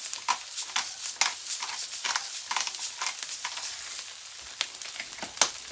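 Beaten eggs frying in a hot pan: a steady sizzle with frequent sharp crackles and pops.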